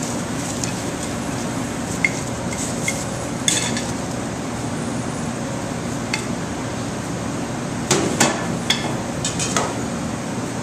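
Short sharp clicks and knocks of utensils against a plate as fried crawfish is added, in small clusters, over a steady background hum.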